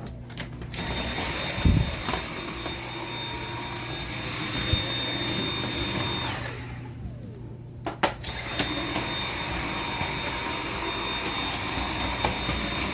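Dyson V7 cordless stick vacuum with its motorhead running, a steady motor whine. About six and a half seconds in the motor cuts out and winds down, then starts again with a knock a second or so later.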